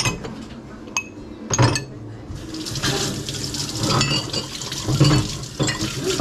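Ceramic cups and glasses clink as they are set into a plastic dishwasher rack, with a few sharp knocks in the first two seconds. Then a hand-held sink sprayer starts a steady hiss of water, rinsing the cups in the rack.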